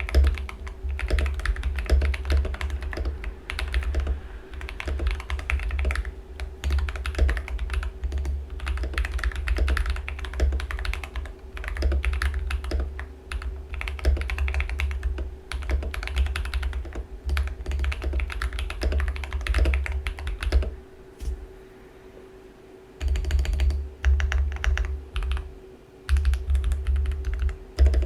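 Typing on a tape-modded Rebel 60 mechanical keyboard with lubed Feker Holy Panda tactile switches and PBT keycaps: quick runs of deep, clacky keystrokes. There is a pause of about two seconds roughly two-thirds of the way through.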